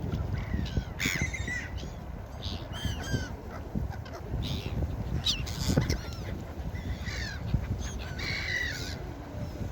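Gulls calling: many short, harsh cries in quick succession, some overlapping, over a steady low rush of background noise.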